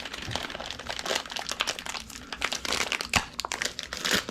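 Crinkling and rustling as parts are handled, with irregular small clicks and taps.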